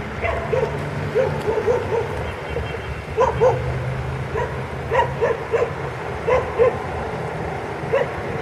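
A dog barking repeatedly in short runs of two or three sharp barks, over the steady rumble of passing street traffic.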